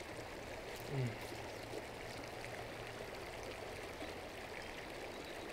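Small stream flowing steadily over rocks, a continuous babble of running water.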